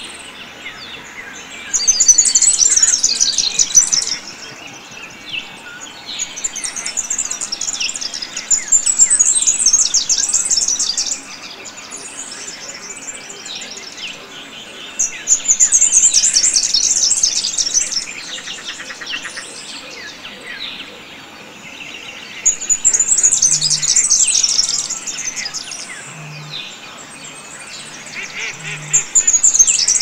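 Wetland birdsong: loud, high, rapid trilling phrases about two seconds long, repeated every five to seven seconds over a chorus of quieter chirps and calls. About three-quarters of the way through, a low pulsing note comes in, repeating roughly once a second.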